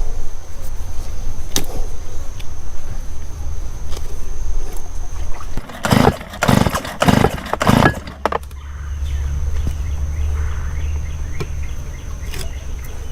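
Recoil starter cord of a two-stroke engine pulled about four times in quick succession about six seconds in, cranking the engine for a compression test, over a low background rumble. The test shows very low compression, about 10 psi.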